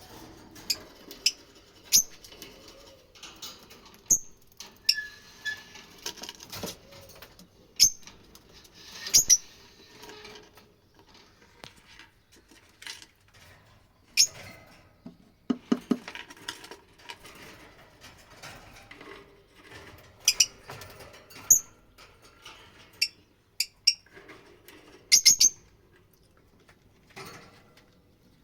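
Fischer's lovebirds giving short, sharp chirps and squeaks at irregular intervals, some in quick clusters.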